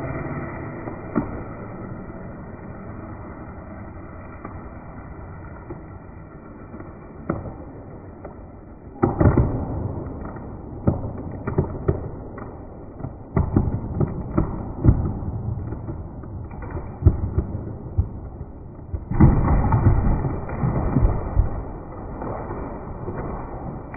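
A chainsaw idling fades out over the first couple of seconds. Then a dead ash tree comes down: sharp cracks and crashes of breaking wood and branches start about nine seconds in. The loudest and longest crash comes around nineteen to twenty-one seconds.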